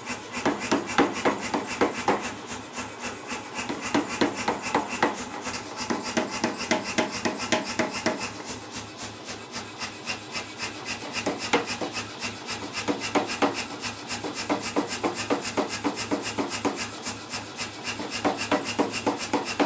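Say-Mak air power hammer striking a bar of hot steel in a steady rapid run of about four or five blows a second, drawing the bar out, over the steady hum of the hammer's motor.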